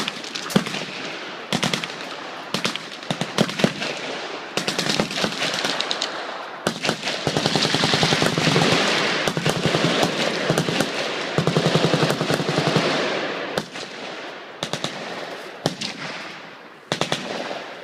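Machine guns firing: short bursts and single shots at first, building to long, overlapping strings of rapid automatic fire in the middle, then thinning back to short bursts near the end.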